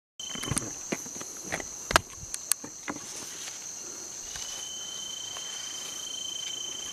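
Night insect chorus in forest: a steady high-pitched trilling, joined about four seconds in by a second, lower steady tone. A few sharp clicks and snaps in the first three seconds.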